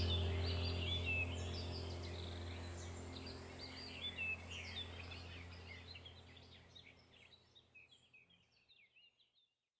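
A chorus of small birds chirping and twittering in quick, overlapping calls over a steady low hum, the whole recording fading out gradually to silence near the end.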